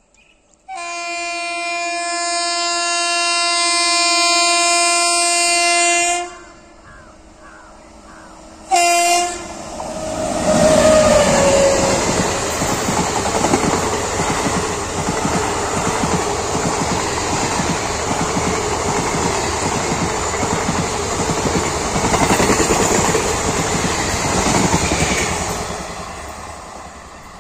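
WAP-7 electric locomotive's horn sounding one long blast of about five seconds, then a short second blast. Then the express passes at speed, the wheels of its ICF coaches clattering rhythmically over the rail joints, fading near the end as the last coach moves away.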